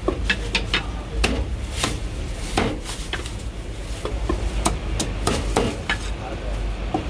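Heavy cleaver chopping roast pork on a thick round wooden chopping block: a string of sharp, irregularly spaced chops, about two a second.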